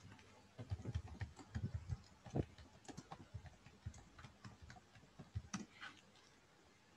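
Faint, irregular computer keyboard typing: soft key clicks and taps, several a second, stopping about a second before the end.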